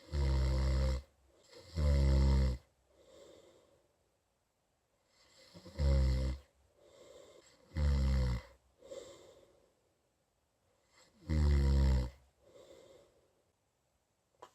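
A person snoring in sleep: five loud, rattling snores at irregular spacing, with fainter breathing sounds between them. This is the snoring under test for an anti-snoring nose device.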